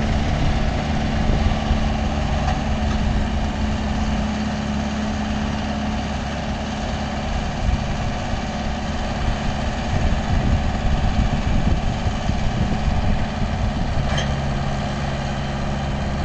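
Mahindra Yuvo 575 DI tractor's four-cylinder diesel engine running steadily under load, pulling a loaded trolley up a dirt ramp. Its pitch drops about six seconds in and shifts lower again near the end.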